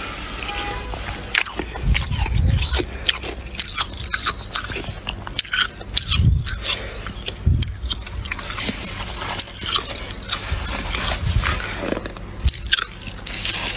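Close-miked biting and chewing of freezer frost: repeated crisp crunches and crackles as mouthfuls of packed frost are bitten and chewed, with a heavier bite every few seconds.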